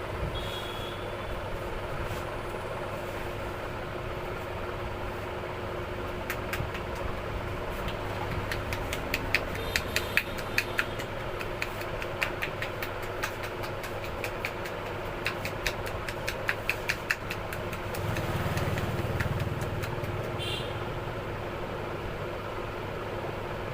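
Quick, sharp hand taps and slaps of a head massage, coming in rapid runs from about six to seventeen seconds in, over a steady engine hum of traffic. A louder low rumble rises near eighteen seconds and eases off a couple of seconds later.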